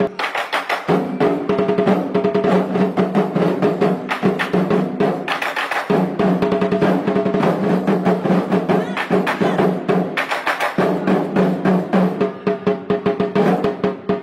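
Drum-led music: rapid drumming with drum rolls over a steady low held note, which drops out briefly near the start, again about four seconds in and around ten seconds in.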